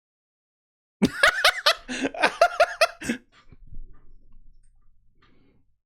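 A person laughing: a quick run of high-pitched bursts about a second in, lasting some two seconds, then trailing off into fainter breathy sounds.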